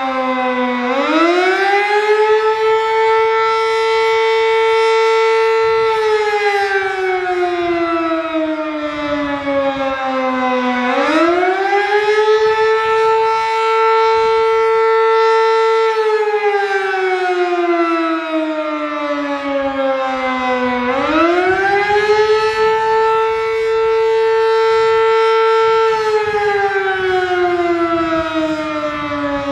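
Sterling M-10 electromechanical outdoor warning siren sounding the attack signal: the tone rises quickly, holds for about five seconds, then slides slowly down, and the cycle repeats about every ten seconds, three times over.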